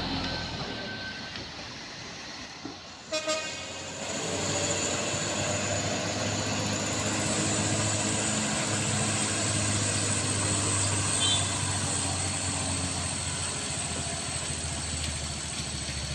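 Mitsubishi Colt Diesel truck engine fading as it pulls away, then two short horn toots in quick succession about three seconds in. After that a steady diesel drone as the truck labours up the steep climb, running out of power under load.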